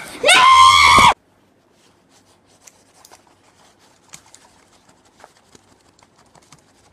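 A child's high-pitched voice crying out in a long wordless squeal that cuts off abruptly about a second in. Faint rustles and clicks of soft toys being handled follow.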